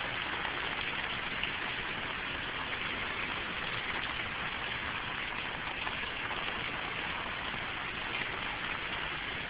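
Heavy rain pouring down, a steady even hiss of rain on surfaces.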